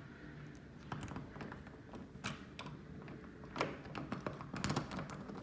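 Faint, irregular light clicks and scrapes from a locked interior doorknob as someone works at its lock, the clicks coming closer together in the last couple of seconds.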